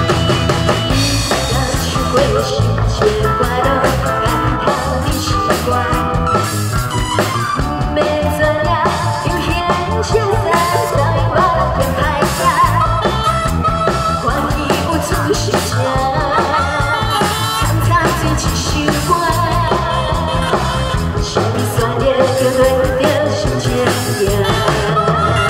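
A woman singing a pop song into a handheld microphone, amplified over band music with drums and electric guitar.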